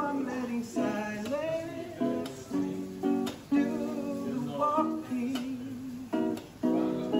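Background music: a song with strummed guitar chords and a singing voice.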